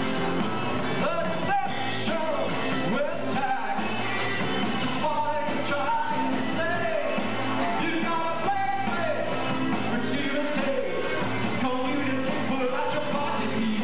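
Live rock band playing: a lead vocalist singing over electric guitar, bass guitar and drums.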